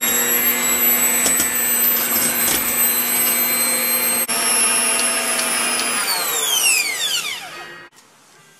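Electric hand mixer running at speed, its beaters whirring through butter and powdered sugar in a stainless steel bowl. About six seconds in it is switched off, and the motor's whine falls steadily in pitch as it winds down, stopping near the end.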